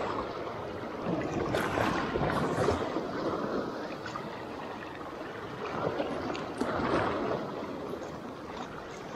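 Small waves washing and sloshing over rocks at the water's edge, swelling twice and falling back.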